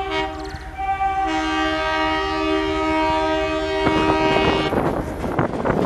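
Horn of an Indian Railways WDM3A diesel locomotive: a short toot, then a long multi-tone blast of about four seconds. Near the end the rumble and clatter of the approaching train takes over.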